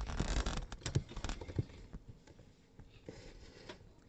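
Small plastic parts of a Peco code 75 point being handled as its tie-bar spring is taken out. A quick run of light clicks and scrapes comes in the first two seconds, then a few faint ticks.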